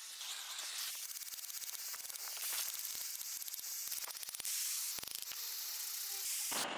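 A brass plaque being scrubbed by hand with an abrasive pad or brush: a steady scratchy hiss made of many quick rubbing strokes. The sound changes abruptly near the end.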